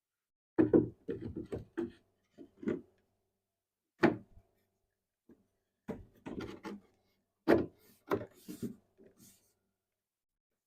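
Back panel of a wooden speaker cabinet being handled and fitted against the cabinet: several clusters of short knocks and rubs with pauses between them.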